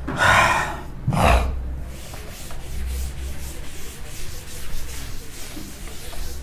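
Chalkboard being wiped clean with a duster. The rubbing strokes sound as noisy swishes: two louder ones in the first second and a half, then a run of quicker, fainter strokes.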